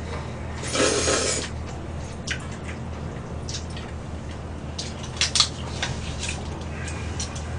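Eating at the table: a noodle slurp about a second in, then scattered light clicks and taps of chopsticks and a metal spoon against stainless steel bowls, with a sharp pair of clinks about five seconds in.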